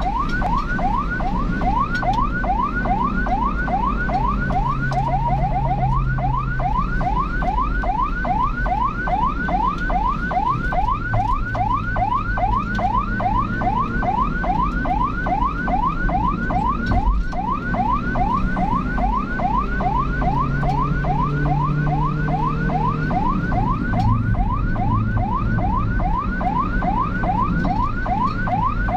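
Emergency-vehicle siren in fast yelp mode, rising sweeps repeating several times a second, with a brief quicker warble about five seconds in. A vehicle engine hums underneath, its pitch rising and falling with the throttle.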